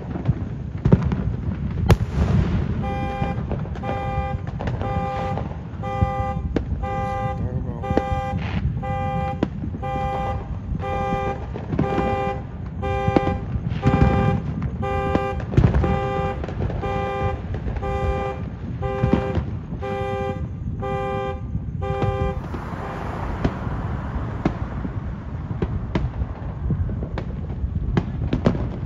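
Car alarm honking in a steady, evenly spaced run of horn blasts that starts a few seconds in and stops about three-quarters of the way through. Fireworks pop and boom throughout.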